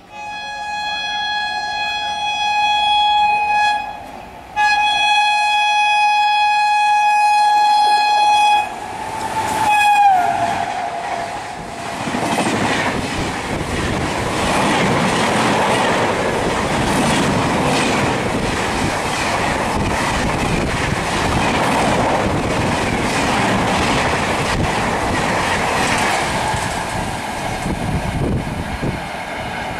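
Train horn sounded in two long blasts, the second sliding down in pitch as the train draws level. Then a fast express train rushes past with a steady rolling roar and clattering wheels.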